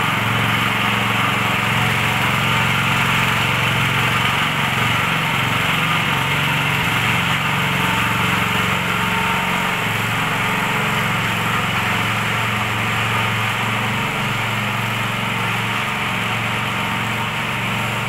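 Walk-behind concrete power trowel's small petrol engine running steadily under load as the trowel is worked across a wet concrete slab.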